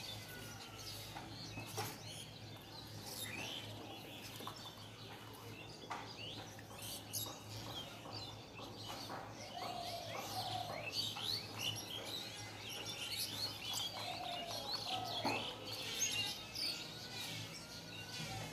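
Small birds chirping outdoors: many short, high calls, some in quick runs, over a faint steady low hum.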